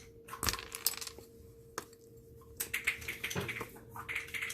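Small hand tool clicking and scraping on a die-cast Hot Wheels Twin Mill as its loose wheels are pried off: light metallic clicks in short rapid clusters, with a single tick between them.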